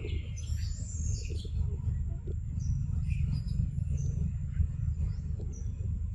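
Birds chirping in short scattered calls over a steady low rumble.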